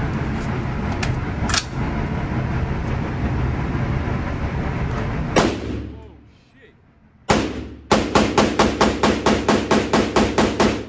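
AR-15-style rifle in 5.56 fired on an indoor range, each shot echoing. A single shot about five seconds in, another about two seconds later, then a rapid string of about fourteen shots at roughly five a second.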